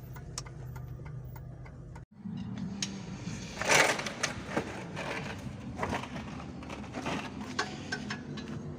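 A car engine idling with light ticking, then, after a sudden break about two seconds in, workshop sounds: a steady mechanical hum under irregular metallic clicks and clanks, the loudest about four seconds in.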